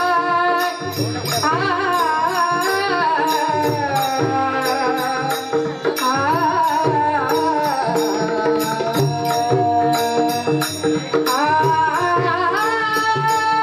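Marathi bhajan: a woman's voice sliding through the melody over a steady held drone, with a hand drum and small cymbals keeping a regular beat.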